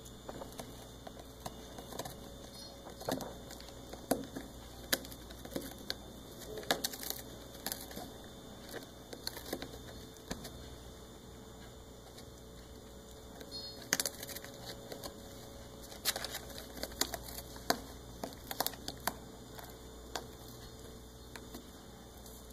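A kitten gnawing and biting at a cardboard box: irregular dry crackling and tearing clicks in bursts, with quiet stretches between them.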